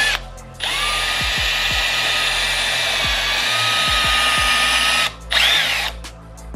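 Cordless drill with a 3 mm bit boring into a gear of a BMW S85 throttle actuator, to weaken the gear so it can be cracked off its shaft. The motor stops, spins up again about half a second in and runs steadily for about four and a half seconds. It stops, gives one short, higher-pitched burst near the end and stops again.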